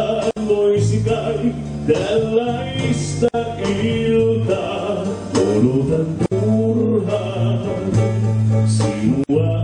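Live band music: a man singing a melody over electric bass, keyboards and drums. The sound cuts out for an instant about every three seconds.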